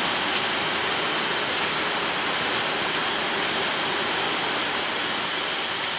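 Steady rushing cockpit noise of a Boeing 737-800 on its landing rollout, the engines and airflow running as the airliner decelerates on the runway, with a brief small knock about four and a half seconds in.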